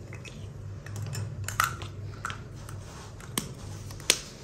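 A few sharp clicks and taps of plastic lipstick tubes and cosmetic packaging being handled and set down on a glass-topped dressing table, over a faint low steady hum.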